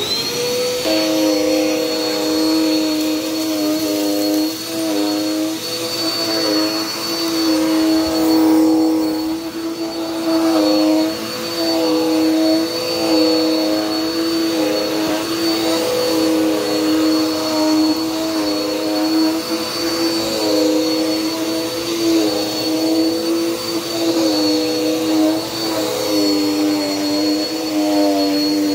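Dirt Devil Power Max Pet vacuum cleaner switched on, its motor whining up to speed right at the start, then running steadily with a high whine. The lower hum wavers slightly in pitch as it vacuums the floor.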